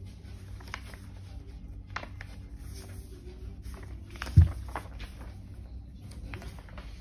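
Sheets of paper being handled and shuffled, with a few light taps and rustles, and one louder thump about four and a half seconds in.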